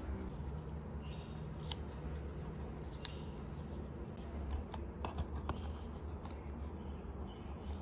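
Paper and card handled by hand, sliding and rustling while a small card is fitted into a wooden photo frame, with several light clicks and taps from the card and frame, over a steady low hum.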